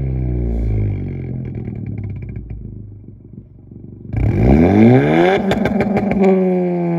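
Honda Civic Si's turbocharged 1.5-litre four-cylinder through a catless downpipe, front pipe and race catback exhaust, revved in place: the revs fall away over the first few seconds, then a sharp blip about four seconds in climbs quickly, with a burst of crackles near the top before the revs drop back.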